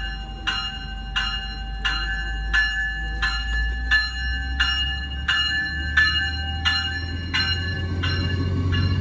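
Warning bell of an NJ Transit River Line Stadler GTW diesel light-rail car, ringing in even strikes about every 0.7 seconds as the train departs. A low rumble of its diesel engine and running gear builds near the end as it pulls away.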